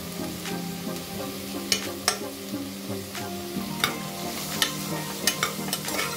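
A spoon stirring vegetables frying in oil in a metal pot, with a light sizzle and several sharp clicks of the spoon against the pan. Background music with sustained tones plays underneath.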